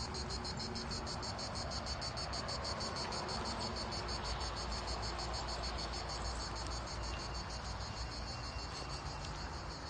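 Insects chirring in a fast, even pulse.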